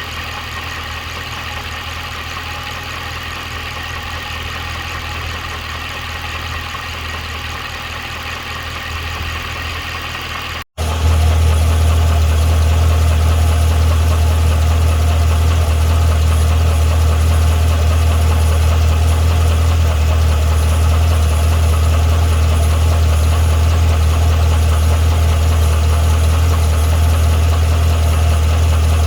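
Supercharged 6.2-litre V8 of a 2012 Cadillac CTS-V idling steadily, with the ticking or knocking noise the owner is trying to document. The sound cuts out briefly about eleven seconds in and comes back louder and deeper.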